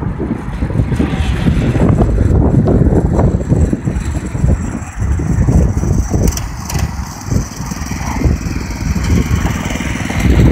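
Mini bike's Predator 212 single-cylinder four-stroke engine running as the bike rides in and pulls up, under heavy wind rumble on the microphone.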